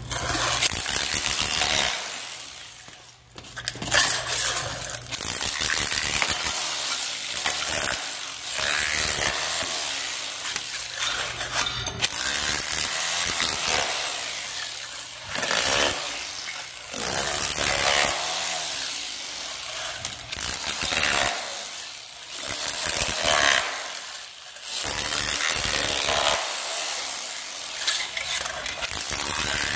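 Milwaukee 1-1/8 in. SDS-Plus rotary hammer driving a 4 in. wide floor-scraper chisel, hammering and scraping as it breaks ceramic floor tile and thin-set off concrete. It runs in loud stretches of several seconds with brief pauses between.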